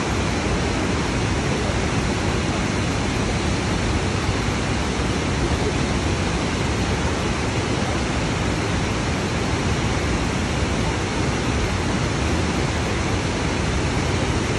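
Waterfall, a steady, unbroken rush of falling water.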